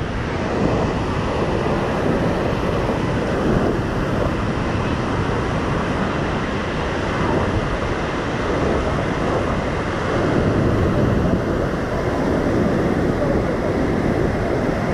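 Merced River whitewater rapids rushing over boulders at high snowmelt flow, a loud, steady, unbroken noise of churning water.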